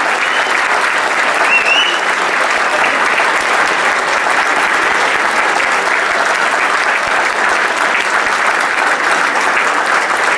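A large theatre audience applauding steadily, a sustained wash of many hands clapping.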